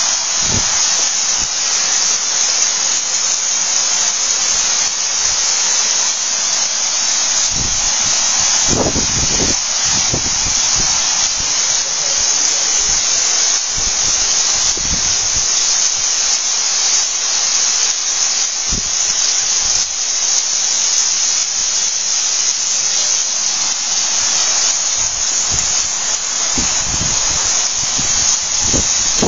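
Heavy rain pouring down onto a wet car park and the roofs of parked cars: a dense, steady hiss, picked up by a phone's microphone. A few low rumbles come in around the middle and near the end.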